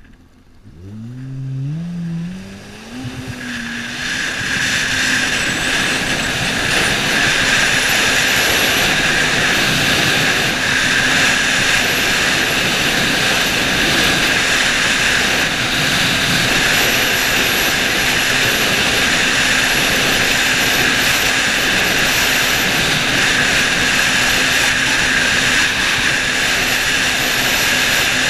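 Yamaha FX SHO WaveRunner's supercharged four-stroke engine pulling away, its pitch climbing over the first few seconds. It then runs steadily at speed with a constant high whine over the rush of water and wind.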